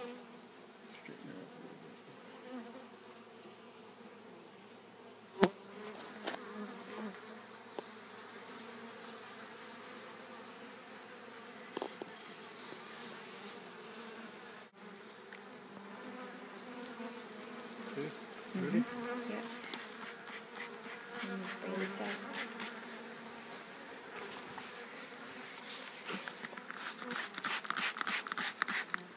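Honeybees from a package buzzing around the open hive, a steady drone with a few close buzzes that bend briefly in pitch past the middle. A single sharp click or knock about five seconds in, and a scratchy rustling near the end.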